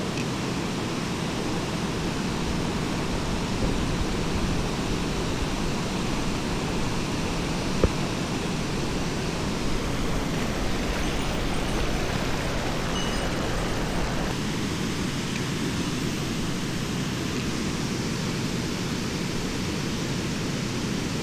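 Mountain stream water rushing steadily over its bed as a constant noise. There is a single brief click about 8 seconds in, and the tone of the rush shifts slightly about 14 seconds in.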